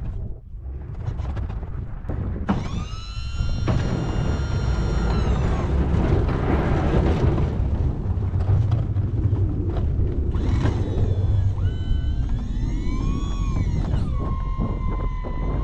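Heavy plowing machine's engine running under load while pushing a 16 ft Sno-Power snow plow, a steady low rumble. Over it come whining tones: one from about two and a half seconds in that falls away, and others after about twelve seconds that rise and fall before holding steady.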